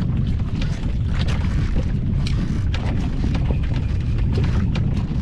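Wind buffeting the microphone: a steady low rumble, with scattered light ticks and splashes over it.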